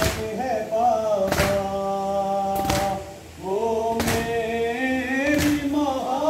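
Men singing a Muharram nauha (lament) together in a slow, held melody, with a sharp slap of matam (hands beating on chests in unison) about every second and a half. The singing breaks briefly a little past the middle.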